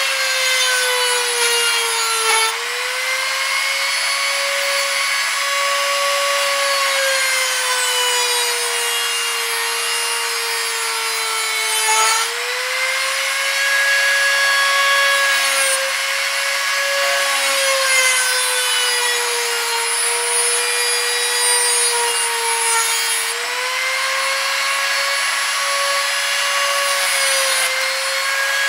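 INGCO mini die grinder (rotary tool) running a small cut-off disc through a 5 mm iron nail: a steady high motor whine with a grinding hiss. The pitch sags slowly as the disc is loaded into the metal and springs back up three times, about every ten seconds.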